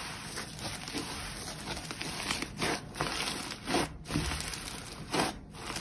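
Hands squeezing and pulling apart a lump of foamy pink slime: a continuous fine crackling, with a few louder crinkly, tearing squelches in the second half.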